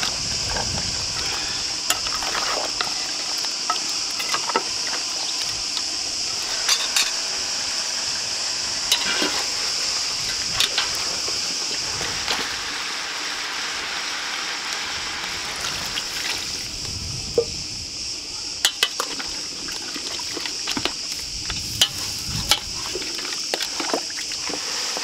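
A metal spoon stirring and scraping chunks of meat in a metal pan over a wood fire, with scattered sharp clinks of metal on metal as pans and lids are handled. Underneath runs a steady, high-pitched drone of insects.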